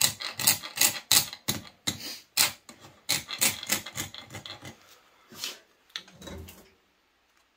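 Hand file rasping back and forth across the edge of a cut steel rose petal, about two to three strokes a second, smoothing off the burrs. The strokes stop about five seconds in, followed by a single duller knock.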